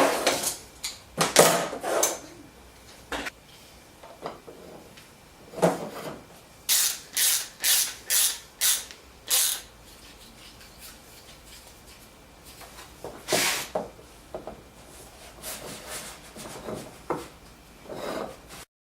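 Workshop handling sounds from fitting wooden parts together: scattered knocks and rubs, with a run of about six short scraping strokes, roughly two a second, around the middle.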